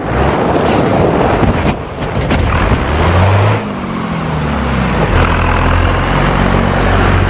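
An engine running under a loud, steady rushing noise, its pitch rising and falling a few times.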